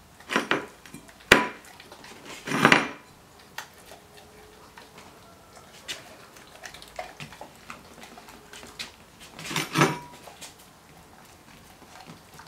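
Dog bowls clattering and clinking as dogs eat spaghetti from them: a sharp clink with a short ring about a second in, clattering scrapes just before three seconds and near the end, and faint scattered ticks in between.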